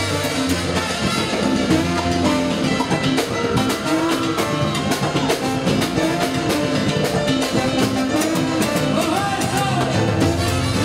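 Live salsa band playing an instrumental passage, with trombones and Latin percussion (congas and timbales) over a steady beat.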